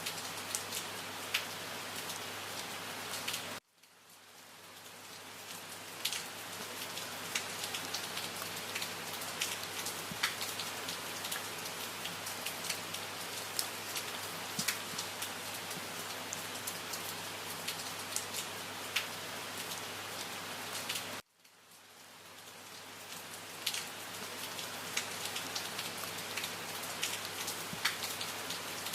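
Steady rain with many distinct drop clicks, falling on a surface. Twice, about 3.5 and 21 seconds in, it cuts out suddenly and fades back up over a couple of seconds, as at the seam of a looped recording.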